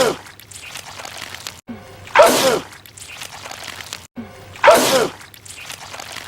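A man's sneeze, a rising intake and then a loud voiced 'ah-choo' with a falling pitch, repeated as an identical loop about every two and a half seconds. There are three sneezes in all, the first fading out right at the start, and each is preceded by a brief drop to silence at the loop seam.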